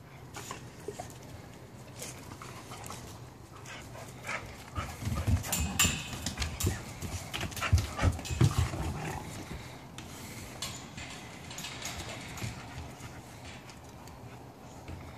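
Several puppies play-fighting, making dog noises and panting as they scuffle, with a louder flurry from about four to nine seconds in.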